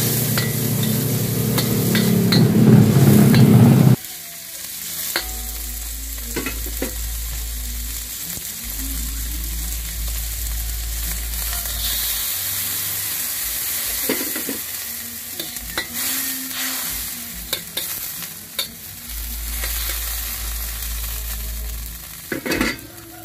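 Pork pieces sizzling in oil and a little water in a steel wok, simmering to soften the meat, with a metal ladle now and then scraping and clicking against the wok. A louder low rumble in the first few seconds cuts off abruptly about four seconds in.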